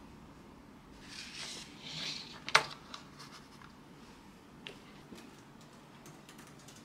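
Small items handled on a wooden desk: two short rustling slides, then a single sharp tap about two and a half seconds in, followed by a few faint light clicks.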